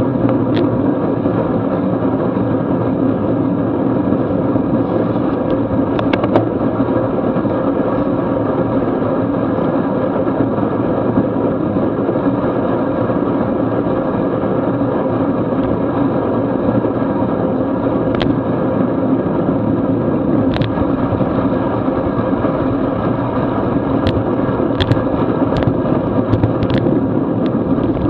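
Steady rush of wind and tyre noise from a road bicycle riding at about 22 mph on wet pavement, heard from a camera mounted on the bike. A few sharp clicks come in the last few seconds.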